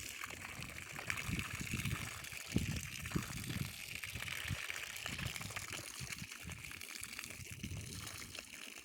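Water running from a garden hose onto the ground while watering a tree, a steady gushing hiss, with wind rumbling on the microphone at times.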